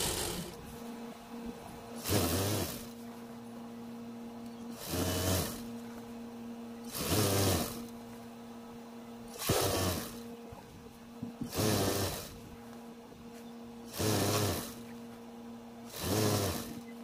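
Juki industrial sewing machine stitching a folded hem in short runs, about one every two seconds, with a steady motor hum in between.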